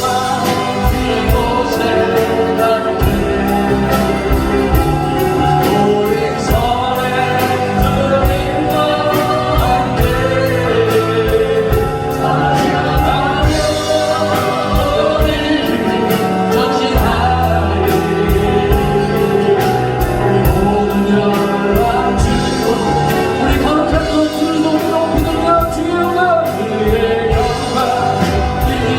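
Worship song with voices singing over band accompaniment with a steady beat.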